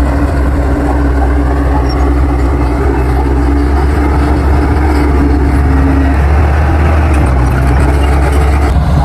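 Bulldozer's diesel engine running steadily with a deep hum, a higher steady tone over it that stops about six seconds in.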